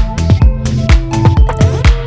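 Electronic dance music with a steady kick drum, about two beats a second, under synth notes.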